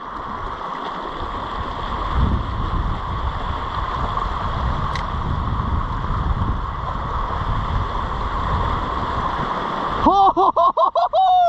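Wind buffeting the microphone over the wash of sea against rocks, a steady rushing noise with low rumbles. Near the end a person's voice lets out a quick run of short excited sounds.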